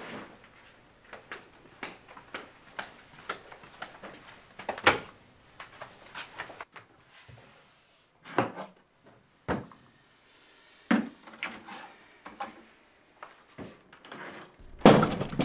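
Wooden kitchen cupboard doors and drawers being opened and shut: a string of sharp knocks and clicks, with the loudest clatter near the end.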